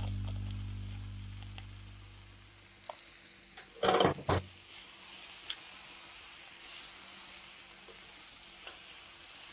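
Steel spatula scraping and knocking against a steel kadai while stirring a frying lentil mixture, over a faint sizzle. The scrapes come in a cluster about four seconds in, followed by a few lighter clicks. A low tone fades out over the first two seconds.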